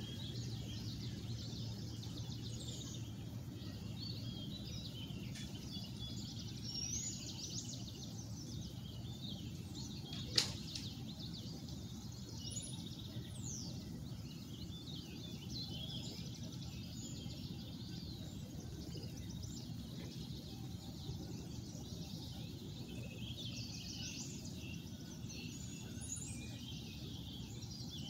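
Many small birds chirping and twittering over a steady low background rumble, with one sharp click about ten seconds in.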